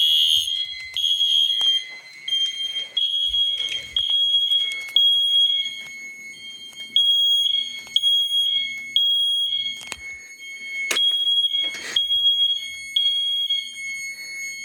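Fire alarm sounders in alarm: a high, shrill piezo tone pulsing on and off about once a second, with a few sharp clicks mixed in.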